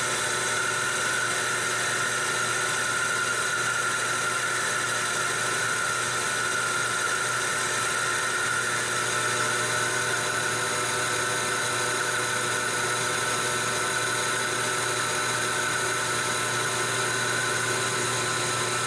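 Metal lathe turning a stainless steel bar down to diameter: the tool cuts steadily with a constant high whine from the spinning spindle and cut.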